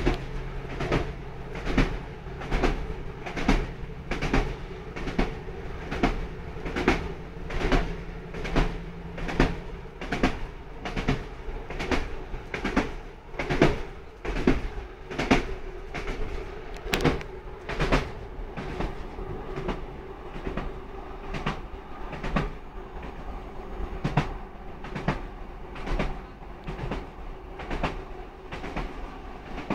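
Inside a Class 156 Sprinter diesel multiple unit running along the line: the wheels clack over the rail joints in a steady rhythm, about two beats a second, over the hum of the train. A low engine note stops about ten seconds in, and the clacking grows fainter in the last third.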